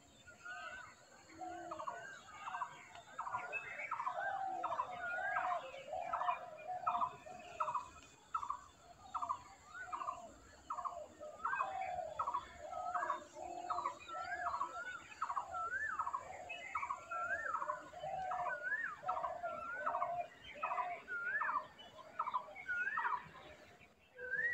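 Birds calling: a steady run of short whistled notes that rise and fall, about two a second.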